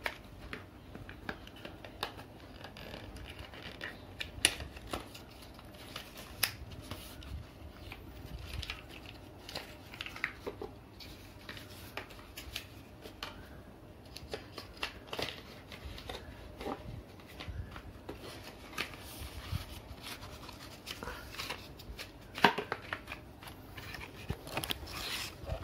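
Paper and thin card handled by hand: a card packet opened and folded paper leaflets pulled out and leafed through, giving scattered rustles, taps and short crackles, the sharpest near the end.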